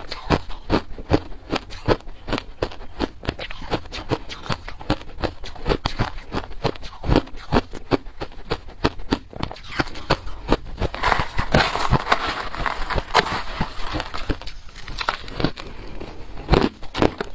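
Crushed ice being chewed close to a clip-on microphone: a continuous, irregular run of sharp crunches and crackles, several a second, thickening into a denser stretch of crunching about two-thirds of the way through.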